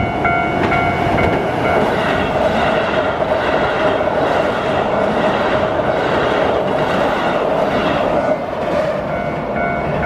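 A Keihan electric train running over a steel railway bridge, its wheels clattering on the rails over a loud, steady rumble. A ringing tone repeats about twice a second: it is clear in the first second or two, is covered by the train in the middle, and stands out again near the end.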